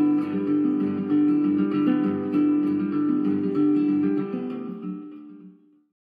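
Background music that fades out to silence about five and a half seconds in.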